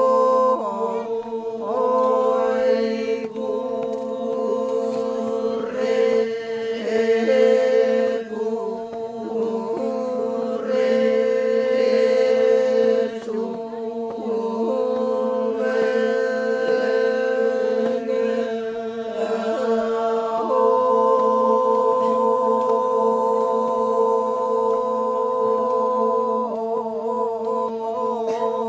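A group of men chanting a Toraja ma'nimbong song, their voices holding one steady droning pitch while a higher line moves over it.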